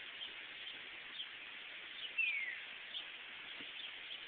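Songbirds calling: one clear down-slurred whistle about two seconds in, with scattered short high chirps over a steady hiss.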